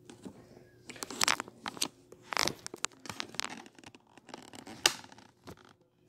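Rustling and scratching close to the microphone, in a string of sharp rasping bursts from about a second in until near the end.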